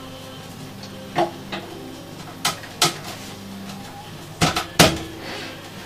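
Wooden and metal parts of a music box being handled and set onto its wooden frame: a string of sharp knocks and clacks, with a louder cluster of knocks about four and a half seconds in.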